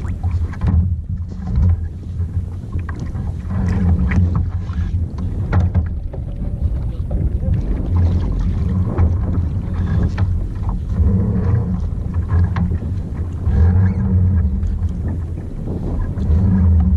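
Wind buffeting the microphone in an uneven low rumble, with small splashes and knocks of water against a kayak.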